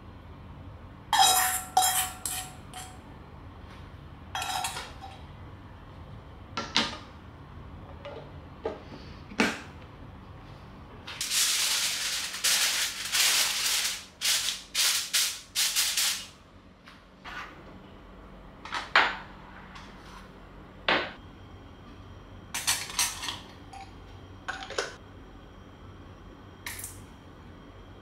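Stainless steel kitchenware clinking and knocking on a worktop, one clink about a second in ringing briefly. From about 11 to 16 s, aluminium foil crinkles as it is pressed into a wok, followed by more scattered clinks.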